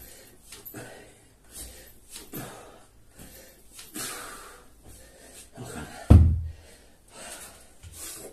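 A man breathing hard in short, repeated gasps while doing burpees, with one loud, heavy thump about six seconds in.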